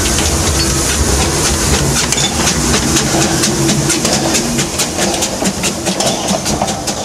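Small narrow-gauge steam locomotive moving at close range, with a low steady hum at first, then a rapid, even clicking as it gets under way about a second and a half in.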